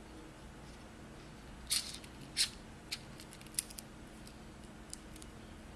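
Small hand-held items being handled, giving about a dozen sharp little clicks and snaps at irregular intervals, the loudest two in the first half.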